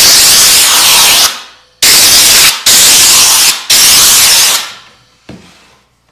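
Compressed-air blow gun on an air hose blowing sanding dust off a wooden cutting board: four long, loud blasts of hissing air with short breaks between, the last fading out about four and a half seconds in, followed by a soft knock.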